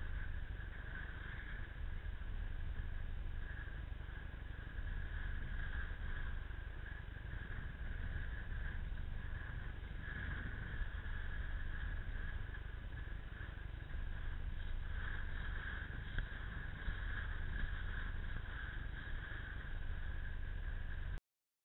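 Wind buffeting an action camera's microphone over choppy open water: a steady low rumble with a constant hiss above it. The sound cuts off suddenly near the end.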